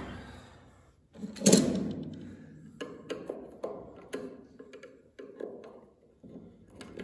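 A small metal tool prying at the lid of a gallon can of deck stain: one heavy thunk about a second and a half in, then a run of small metallic clicks and taps as the tool works around the rim.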